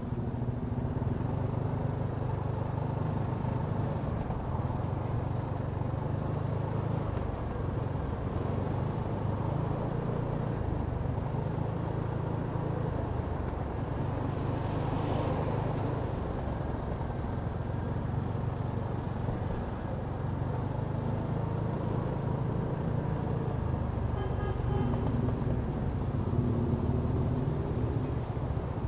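Kymco Downtown 350i scooter's single-cylinder engine running while riding in city traffic, a steady drone that shifts in pitch now and then with the throttle. A few faint short high tones come near the end.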